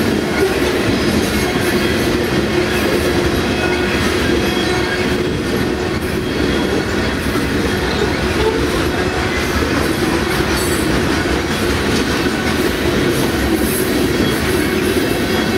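Coal train's hopper cars rolling past close by, a steady loud rumble of steel wheels on the rails.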